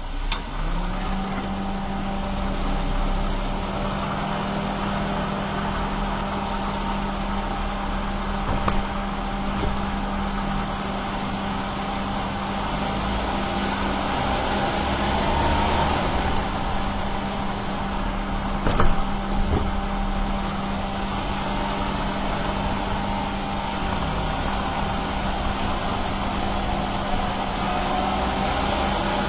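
Perodua Myvi on the move: steady engine and road noise with a constant low hum, broken by a few short knocks, the loudest about two-thirds of the way through.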